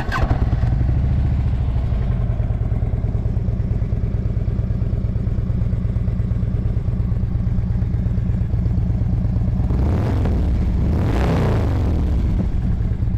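Harley-Davidson Twin Cam 103 V-twin idling through aftermarket slip-on mufflers, with a steady low lope. About ten seconds in, it is revved once, the pitch rising and falling back to idle.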